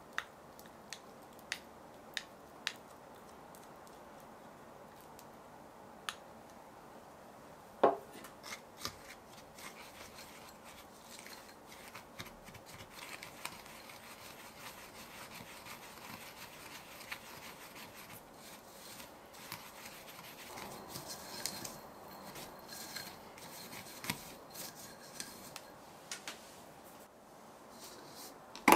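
A small utensil stirring and scraping granulated beet sugar, cinnamon and honey in a small glass bowl: a continuous gritty scratching against the glass through most of the stretch. It is preceded by a few light clicks at the start and a single louder knock about eight seconds in, and a sharp knock comes at the very end.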